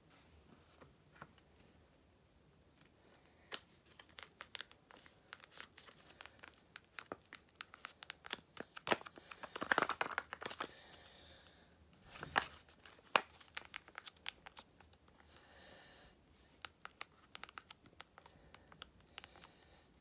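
Faint handling noise of a Nokia mobile phone held and turned in the hand: scattered clicks and crinkly rustles, densest and loudest about ten seconds in, with two sharp clicks soon after.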